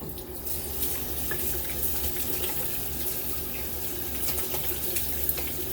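Tap water running steadily into a bathroom sink, starting about half a second in.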